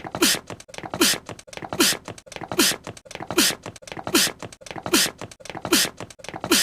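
An anime character's short sneeze looped over and over, about eight in a row at an even pace of roughly one every 0.8 seconds. Each one is a quick falling voiced 'ah' with a sharp hissing burst.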